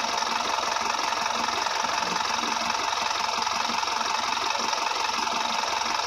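Truck engine idling: a steady, rattly running sound.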